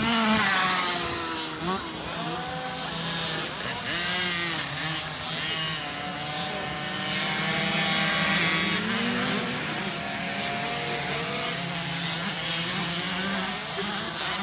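Several small youth dirt bike engines revving up and down as the bikes ride around the track, with overlapping rising and falling engine pitches.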